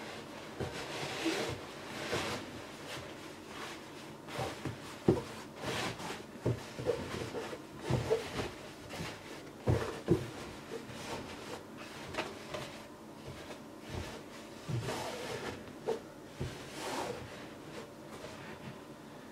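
Thick cotton cloth rustling as it is folded and pressed into a wooden-framed dish, with irregular soft knocks and taps of hands against the dish.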